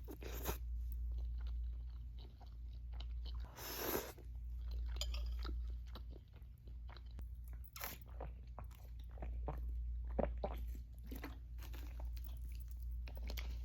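A person chewing and biting a mouthful of ramen noodles: irregular wet mouth clicks and smacks, over a steady low hum.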